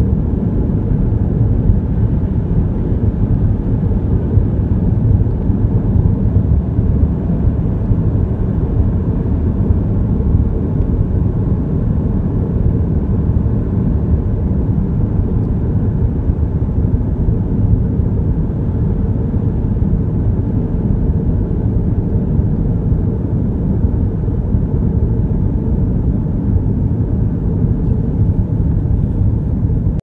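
Steady, deep road noise inside a moving car's cabin: tyres rolling on the road surface with the engine's rumble underneath, even throughout.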